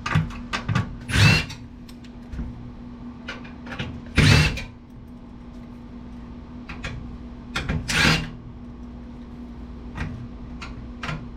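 Hands taking apart an old desktop computer: short bursts of clattering and scraping from metal and plastic parts, three of them louder (about a second, four seconds and eight seconds in), among smaller clicks and knocks. A steady low hum runs underneath.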